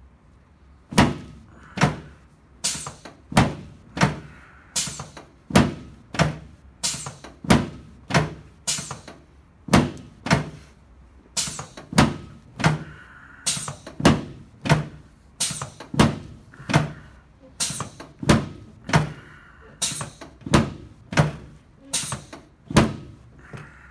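Sharp knocks with a low thud, repeated about twice a second and each followed by a short ring, from chiropractic adjusting work on the treatment table.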